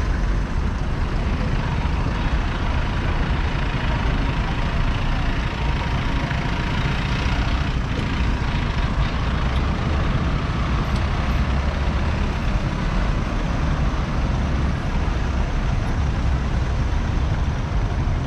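Street traffic: car and truck engines running at low speed as vehicles move past, with a steady low rumble.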